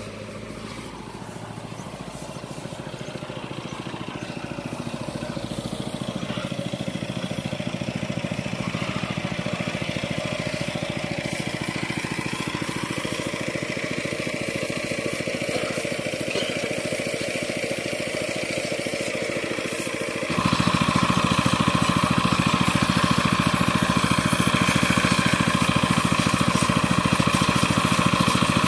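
Combine harvester's engine running steadily. It grows louder over the first several seconds, then jumps noticeably louder, with a harder, higher-pitched note, about twenty seconds in.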